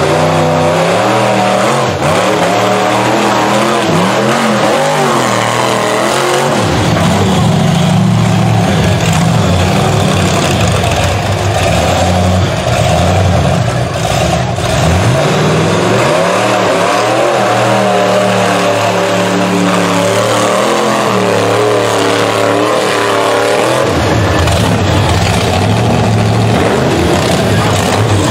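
Rock bouncer buggy's engine revving hard on a steep rocky hill climb, its pitch rising and falling over and over as the throttle is worked.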